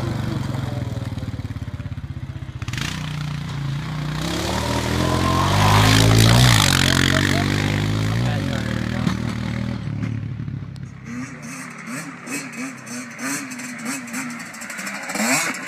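A four-wheel ATV engine running as the quad drives past, loudest about six seconds in, then fading as it rides away. Near the end, a small dirt bike engine revs up and down repeatedly, farther off.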